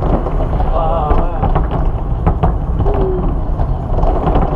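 Fireworks going off in rapid, continuous succession: deep booms and rumbling with many sharp cracks and crackles overlapping.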